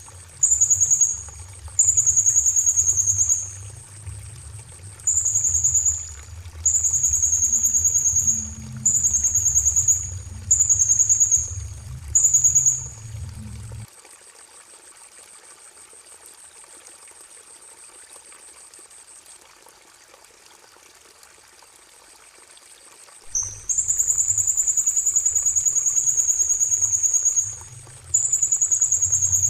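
Recorded song of a small songbird, used as masteran tutoring song: high, rapidly trilled phrases of about half a second to a second and a half each, repeated with short gaps. The phrases stop for about ten seconds midway, leaving a faint steady high tone, then return as two longer phrases near the end.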